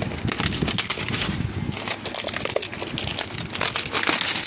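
Crackling, rustling handling noise with scattered clicks as a desktop PC power supply and its cables are picked up and moved into place in the case.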